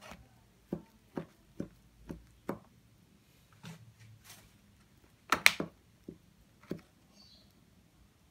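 Knife cutting wedges from a round cheese sponge cake, the blade knocking down through the cake onto its clear plastic tray: a run of short knocks about every half second, with a louder cluster of clacks a little past halfway.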